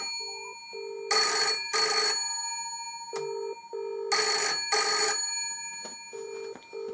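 Bell of a cream British rotary-dial telephone ringing for an incoming call in the British double-ring pattern: two short rings about every three seconds. The call is getting through on the line. Between the rings there is a lower, steady-pitched double buzz.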